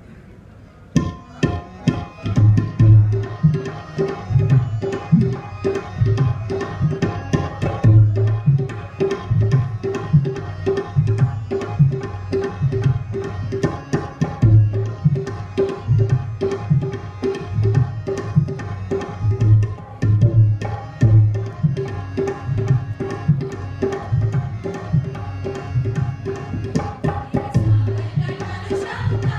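Tabla playing a steady, fast rhythm, starting about a second in, as the instrumental introduction to a sung folk song. Several women's voices begin singing together right at the end.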